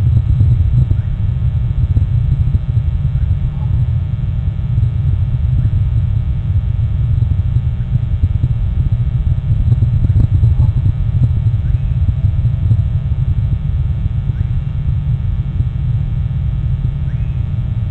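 Steady, loud low rumble with faint scattered ticks and a faint steady hum above it.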